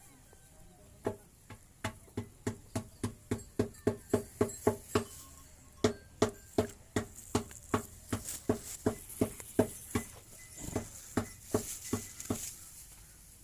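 A long run of quick, regular taps or clinks, about three a second, each with a short ring; it starts about a second in, pauses briefly twice and stops near the end.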